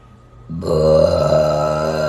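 A long, loud burp that starts suddenly about half a second in and holds a low, steady pitch, still going at the end.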